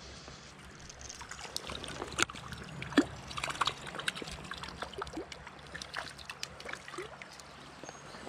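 Small hooked brown trout thrashing at the surface of a shallow stream, making irregular sharp splashes over the steady flow of the water, the sharpest about two and three seconds in.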